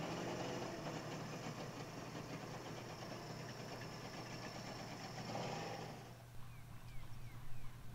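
Volkswagen camper van's engine running steadily as the van pulls away, its sound dropping off about six seconds in. A few short high chirps follow near the end.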